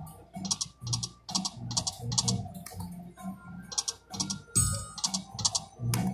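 Video slot machine's game music playing while the reels spin: a rhythmic beat with short hissing, shaker-like strokes two or three times a second over low drum-like tones.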